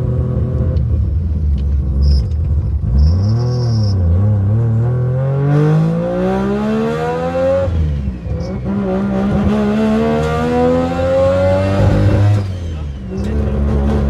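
Boosted three-rotor rotary engine of a Mazda RX-7, heard from inside the cabin under hard acceleration. Its pitch climbs steadily through one gear, drops at a shift about eight seconds in, climbs again through the next gear, then falls back as the throttle is lifted near the end.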